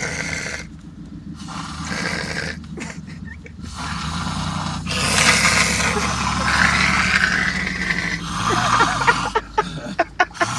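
A man snoring heavily in his sleep: long, loud, rasping breaths, the loudest about halfway through, followed near the end by a quick fluttering rattle.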